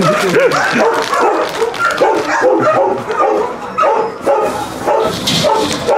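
Many shelter dogs barking at once, their barks overlapping without a break.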